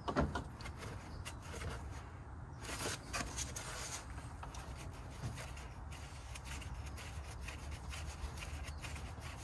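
Gloved hand rubbing and scraping against plastic and metal parts in a car's engine bay, with scattered faint clicks and a short burst of scraping about three seconds in.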